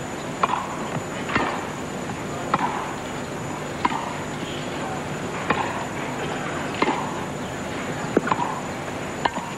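Tennis ball struck back and forth with rackets in a rally: a sharp pock about every 1.3 seconds, some eight hits in all.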